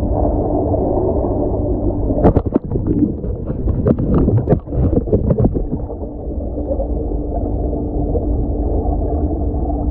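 Muffled underwater rumble picked up by a camera submerged in a swimming pool, with a faint steady hum. From about two to six seconds in comes a run of sharp bubbling clicks and crackles.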